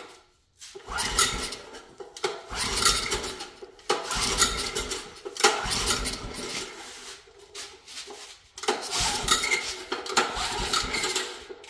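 Recoil starter of a small Honda generator engine pulled over and over in four spells, the engine cranking without starting. The engine has sat unused for a year.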